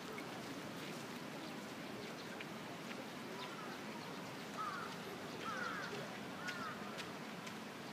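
Steady outdoor background noise with a few short chirping bird calls about halfway through.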